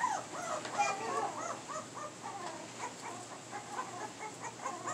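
Pit bull puppies, about three weeks old, whimpering and crying while being bathed: a run of short, high, rising-and-falling whines, two or three a second.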